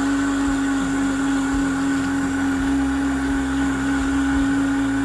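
A motor running with a steady, unchanging whine over a low rumble.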